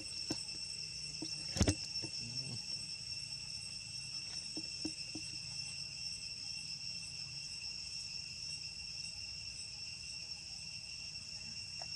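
Insects droning steadily at a high, constant pitch, with one sharp click about a second and a half in and a few faint ticks near the middle.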